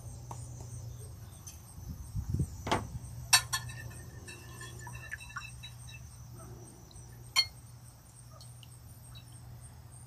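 Wire whisk stirring egg custard in a glass pie dish, the wires clinking against the glass now and then; a few sharper clinks ring briefly. A steady low hum runs underneath.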